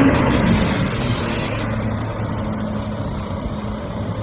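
Truck engine running steadily, with a loud hiss over it that cuts off sharply about a second and a half in.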